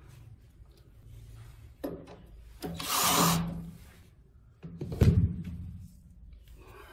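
A cordless drill driver runs for about a second, driving a screw into the wooden bed frame. About five seconds in comes a heavy knock on the wooden frame, the loudest sound, amid handling and rubbing of wood.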